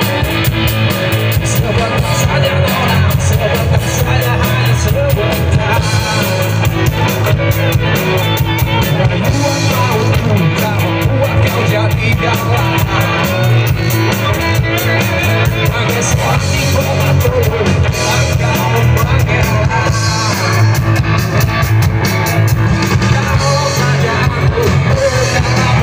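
Live rock band playing through a PA system: distorted electric guitars, bass and a drum kit keep a steady beat while a man sings.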